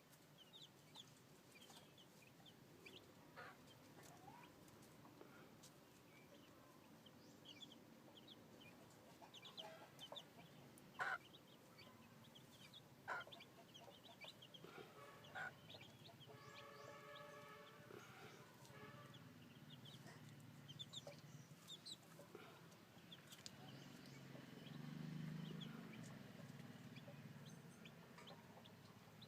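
Faint peeping of newly hatched chicks: scattered short high chirps, a few sharp clicks, and one longer call with several pitches about halfway through.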